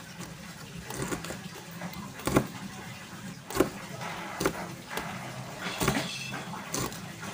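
Kitchen knife slicing green chilies on a plastic cutting board: separate knocks of the blade on the board, roughly one a second and unevenly spaced, over a steady low hum.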